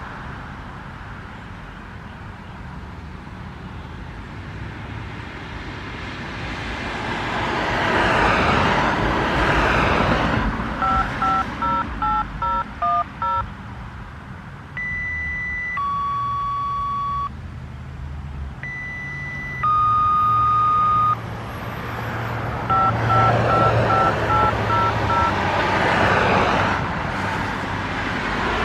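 Fire department pager test tones. There are two runs of quick touch-tone beeps and two pairs of long steady paging tones, each a high tone followed by a lower one. Cars pass on the road before and after.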